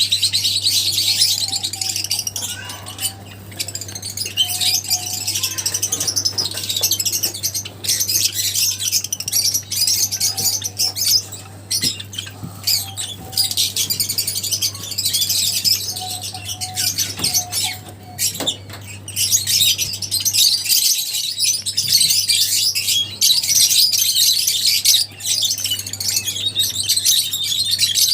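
Many lovebirds chirping and twittering together, a dense, continuous high-pitched chatter with squawks. A steady low hum runs underneath and drops out briefly about twenty-one seconds in.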